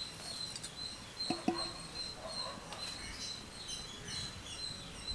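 Outdoor ambience of a steady high insect trill, with short, faint bird chirps repeating over it.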